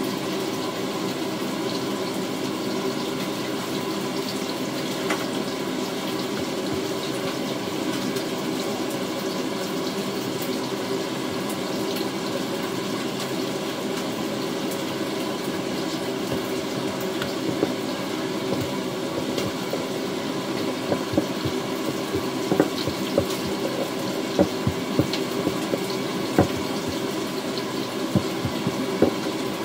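A steady rushing background noise, with a run of short knocks in the second half as a wooden rolling pin works bun dough on a silicone mat.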